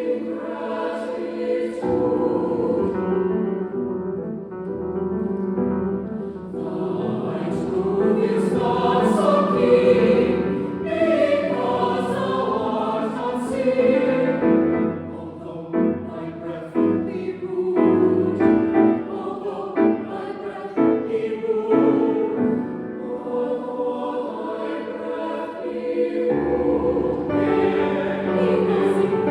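Choir singing a choral piece with piano accompaniment, the voices growing louder and fuller in the middle.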